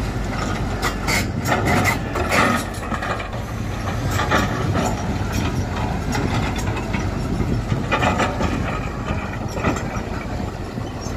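Tata Hitachi Zaxis 120 excavator running steadily while its bucket digs into stony murrum, with irregular clattering knocks of rock and metal.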